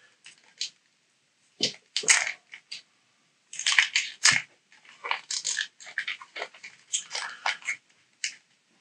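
Foil trading-card booster pack being torn open by hand: the wrapper crinkles and crackles in irregular short bursts, with a couple of brief pauses.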